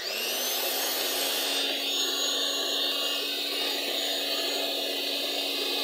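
Electric hand mixer switching on and running steadily, its beaters whipping a cream and cocoa mixture in a plastic bowl. It starts abruptly with a brief rising whine as the motor comes up to speed, then holds a steady hum.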